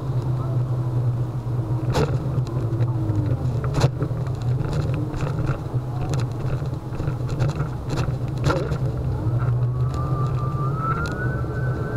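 Steady low hum and road noise of a Solowheel electric unicycle riding along a city street, with traffic around. There are a few sharp knocks, and from about ten seconds in a high whine rises slightly and holds.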